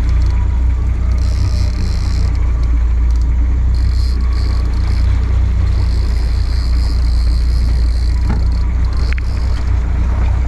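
Steady low drone of a trolling fishing boat's engine running, with wind and water noise over it.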